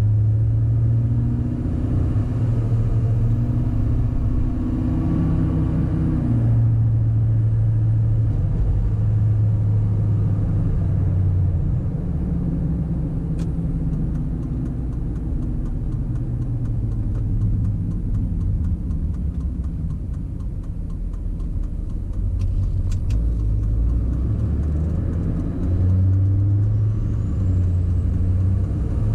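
Duramax 6.6L V8 turbodiesel truck driving: a steady low engine drone with road noise, the engine note rising and falling in the first few seconds and again near the end.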